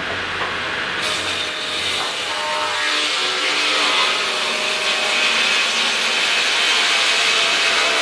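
Large sawmill circular saw blade cutting through a squared log: a dense hiss of the blade in the wood with several steady ringing tones. It comes in about a second in and grows louder.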